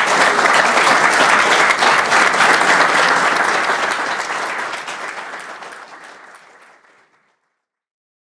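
Audience applauding at the close of a lecture, a dense patter of many hands clapping that fades away from about four seconds in and is gone near the end.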